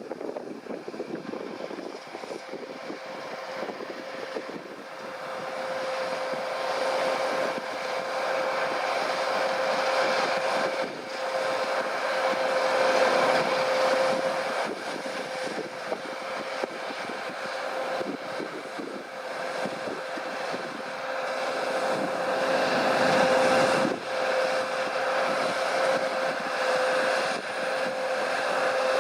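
Claas Lexion 670 combine harvester working a crop: a steady machine drone with a constant whine, growing louder about six seconds in and again near the end.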